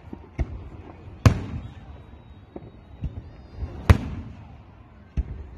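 Aerial firework shells bursting: two loud bangs, about a second in and near four seconds in, with several smaller bangs between and after, each trailing off in a short echo.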